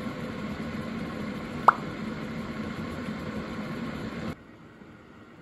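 Electric food steamer running, a steady hiss and hum of water boiling under the lid, with one sharp rising plop like a water drop about a second and a half in. The steaming sound cuts off suddenly near the end, leaving a much quieter background.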